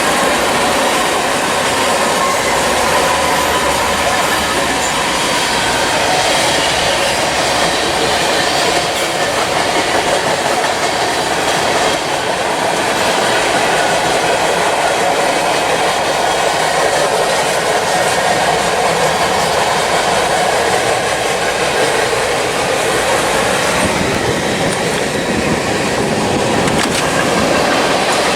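Freight train's cars rolling past, a steady loud noise of steel wheels running on the rails.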